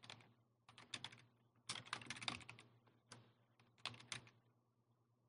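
Faint computer keyboard typing: keystrokes come in short runs of clicks and stop about a second before the end.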